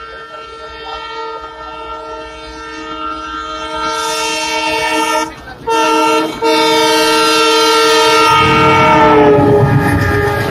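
Indian Railways goods train locomotive horn sounding as the train approaches, growing louder. It sounds as a long blast, a short one, then another long one. Its pitch drops as the locomotive passes, giving way to the rumble of the freight wagons rolling by.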